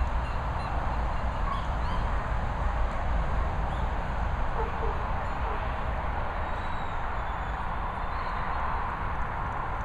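Steady outdoor background noise with a heavy low rumble, with a few faint, short high chirps scattered through it.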